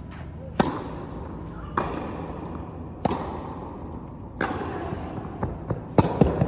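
A tennis serve and rally: the ball is struck by racquets and bounces on the court, about six sharp pops, each with a short echo in a large indoor hall.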